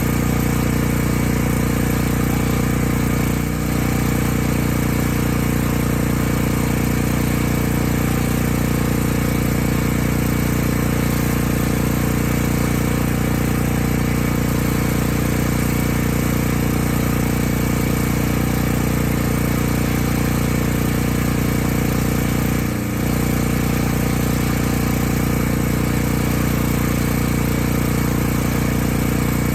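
Portable gasoline generator (Champion) running steadily at a constant engine speed, its sound dipping briefly twice.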